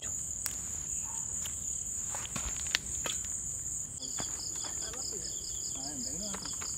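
Crickets and other night insects chirring in a steady high trill. A second trill, pulsing about five times a second, joins about four seconds in, over scattered light clicks and rustles.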